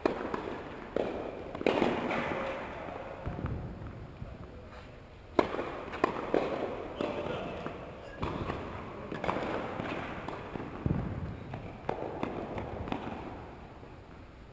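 Tennis balls being struck and bouncing, a string of irregular sharp pops a second or more apart, each echoing around a large indoor tennis hall.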